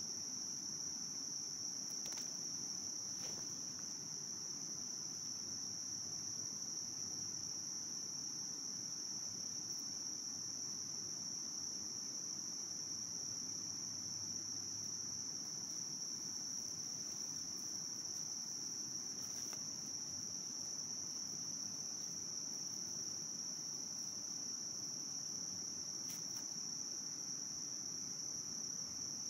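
A steady, high-pitched insect drone, unbroken and even in level, with a few faint clicks.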